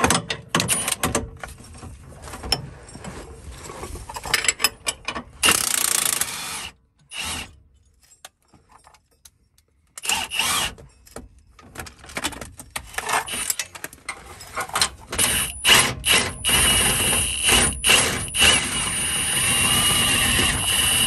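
Wrenches working on the Jeep Wrangler JL's 18 mm upper control arm bolts: ratchet clicking and metal-on-metal clatter. A brief break partway through is followed by a power tool running steadily for several seconds toward the end.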